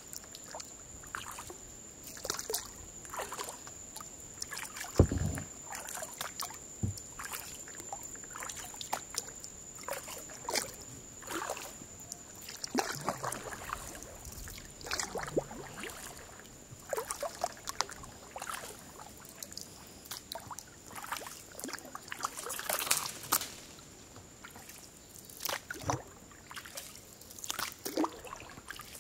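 Kayak paddling: the paddle blades dip and pull through calm water, with irregular splashes and dripping water running off the blades. A dull thump about five seconds in is the loudest moment.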